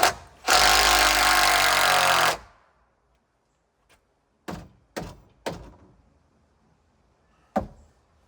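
Cordless drill driver running for about two seconds, backing a screw out of a roof beam, its motor pitch falling as it winds down. Then three sharp knocks about half a second apart, and one more near the end.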